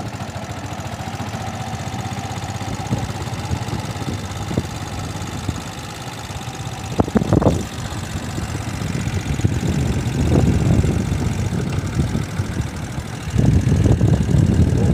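Motorcycle engine running with a steady rapid pulse, with a short sharp knock about seven seconds in and the engine louder over the last second or two.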